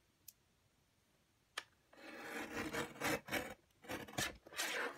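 A click, then from about two seconds in several scraping strokes of a Shwoopy 12x12 sliding-blade paper cutter, its blade running along the rail as it trims the card.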